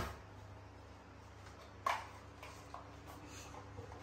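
Light handling clicks and taps in a quiet room, with one sharper click about two seconds in, as a small drink carton with a straw is taken and held by a pet macaque.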